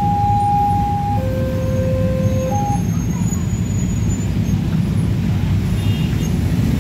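A railway level-crossing warning alarm sounds two alternating tones, high then low, each about a second long, and cuts off on a short high note a little under three seconds in as the barrier lifts after the train has passed. Underneath is the steady rumble of many motorcycle engines idling and pulling away at the crossing.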